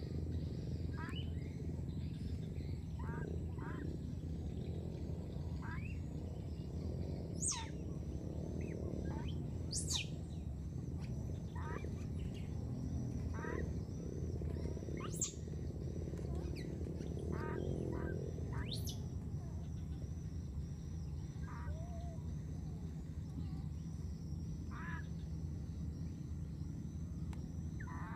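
Short, high chirping animal calls repeating every second or two, a few of them sharp squeaks that sweep up very high, over a steady low rumble.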